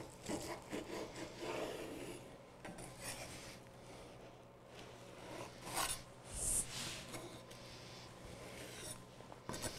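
A knife sawing through the crisp baked puff-pastry crust of a beef Wellington: faint rasping strokes of the blade, in a few short spells with pauses between.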